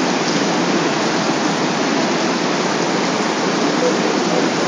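Steady, loud rushing of a swollen river in flash flood, muddy floodwater churning past.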